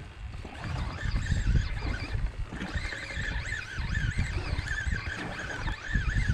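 Wind buffeting the microphone aboard a small fishing boat on open water, a gusty low rumble; a faint wavering high tone joins in about two and a half seconds in.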